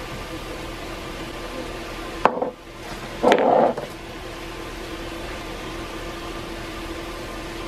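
Steady kitchen fan or appliance hum with a few fixed tones. A sharp click comes about two seconds in, and a short, loud rattle about a second later from handling things at the counter and stovetop.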